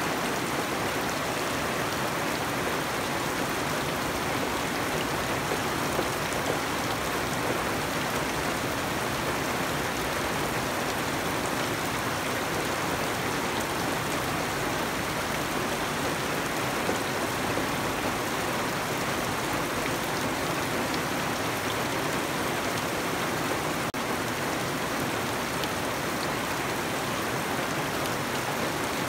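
Steady rain falling on garden foliage and wet ground, an even, unbroken hiss with faint scattered drop ticks.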